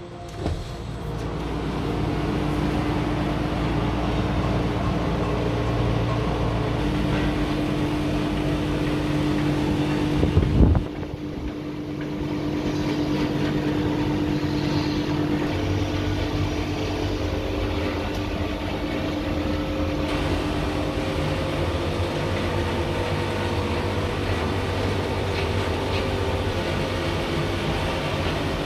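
Steady outdoor city noise, mostly a traffic hum with a constant low drone, swelling over the first two seconds as a balcony door opens. There is one brief loud burst about ten and a half seconds in.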